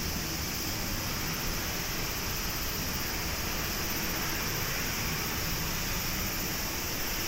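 Steady rushing jet noise from an Airbus A350-900's Rolls-Royce Trent XWB engines, heard at a distance, holding the same level and pitch throughout.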